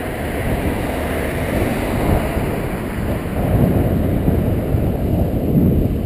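Wind buffeting the microphone of a helmet camera on a moving bicycle: a steady, fluttering low rumble.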